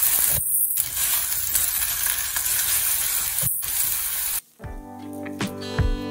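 A puran poli sizzling as it fries in hot ghee in a non-stick pan, a steady frying hiss. About four and a half seconds in, the sizzle cuts off abruptly and background music begins.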